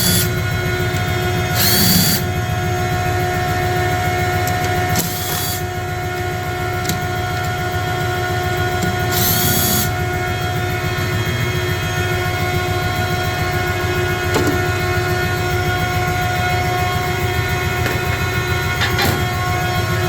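Heavy plant machinery running steadily, a low rumble under a constant hum of several steady tones, with four short hissing sounds, each about half a second, in the first half.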